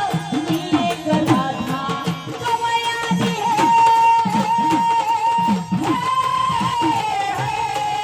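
Marathi gondhal folk devotional music: one long held, wavering melody line that sinks slowly after about six seconds, over a steady pattern of drum strokes.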